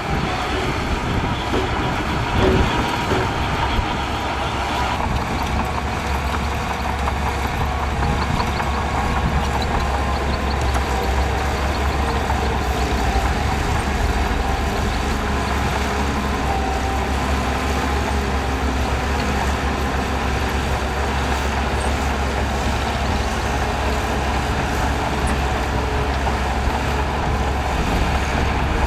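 Heavy diesel earthmoving machinery (bulldozer and dump trucks) running steadily while moving sand, with a single knock about two and a half seconds in.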